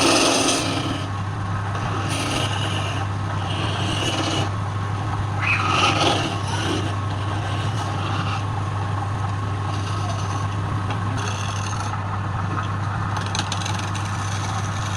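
Woodturning lathe motor running with a steady hum while a tool scrapes the wood in repeated passes, each lasting about a second.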